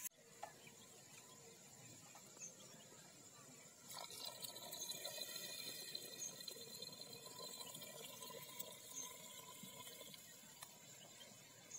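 A thin stream of water pouring into crab curry in a clay pot, adding the water for the gravy. It is faint, starts about four seconds in, and trails off near the end.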